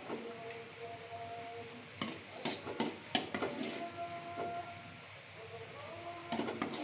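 Metal ladle clinking and scraping against a metal wok as the sauce is spooned out: a quick run of sharp clinks about two seconds in, and a few more near the end.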